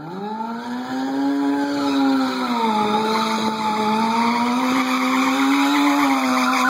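Yamaha sport bike's engine held at high revs in a stationary burnout, the revs climbing at the start, dipping briefly, then rising again, with the spinning rear tyre squealing on concrete.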